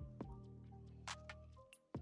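Background music with a steady low drone, over a few sharp keyboard key clicks from typing. The music drops out briefly just before a loud click near the end.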